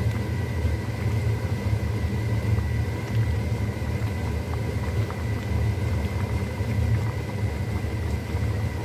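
Steady low mechanical rumble with a thin high whine, with a few faint clicks of a ladle stirring a simmering pot of mung bean soup.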